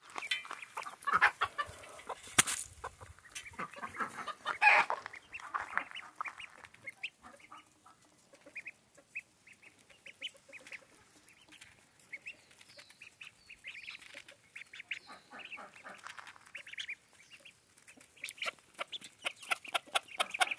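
Ducklings and chicks peeping and a hen clucking while they feed: many short, high peeps, busiest near the end.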